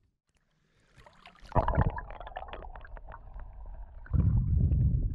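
Near silence for about a second, then sloshing water and gurgling around a camera going into the river, turning into a loud, muffled low rumble of water heard from under the surface about four seconds in.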